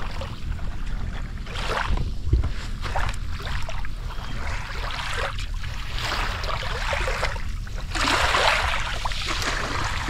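Small waves washing up on a sandy beach, surging in about three times, over a steady low rumble of wind on the microphone.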